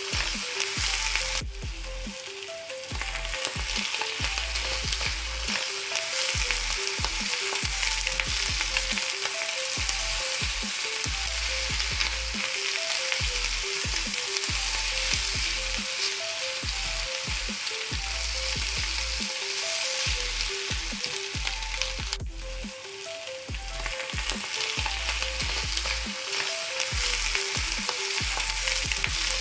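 Food frying in hot oil, a steady sizzle with occasional stirring, over light background music; it breaks briefly about three quarters of the way through.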